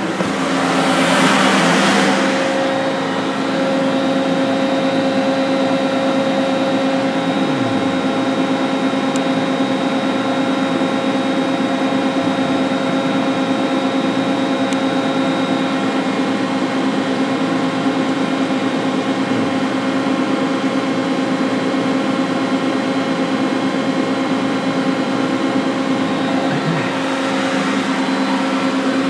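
Steady hum and whine of running machinery, holding several steady tones, with a short rush of noise about a second in.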